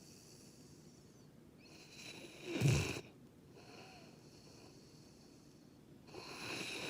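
A sleeping Labrador–Schnauzer mix dog snoring with Darth Vader-like rasping breaths. About two and a half seconds in, one breath swells into a loud, deep snort; another hissing breath starts near the end.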